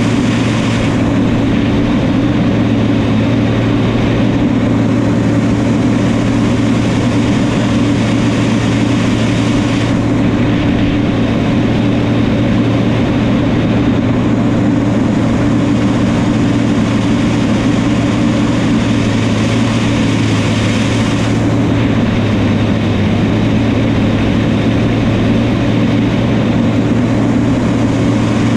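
New Holland crawler tractor's diesel engine running steadily with a loud, even drone.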